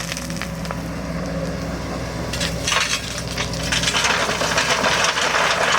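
Kobelco excavator's diesel engine running steadily, with a crunching, cracking noise that starts about two and a half seconds in and grows louder from about four seconds in.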